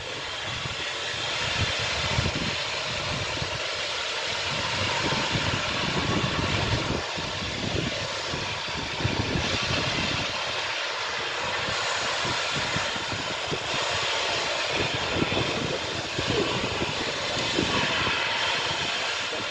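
Britannia-class steam locomotive 70000 Britannia pulling away, heard out of sight as a steady roar without distinct exhaust beats, with wind gusting on the microphone.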